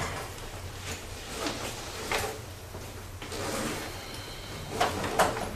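Faint scrapes and knocks of a person moving about at a whiteboard: footsteps and a marker touching the board. A few are scattered through the middle and two louder ones come near the end, over a steady low room hum.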